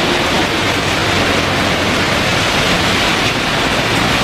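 Heavy rain falling, a steady, loud rushing hiss.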